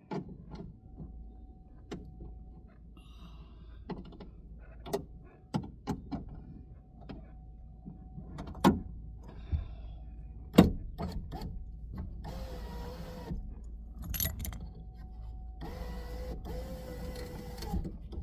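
Power window motor of a 2004 Pontiac's rear door running twice, for about a second and then about two seconds, moving the glass on the newly fitted window regulator. Scattered clicks and knocks from handling the door parts come before and between the runs.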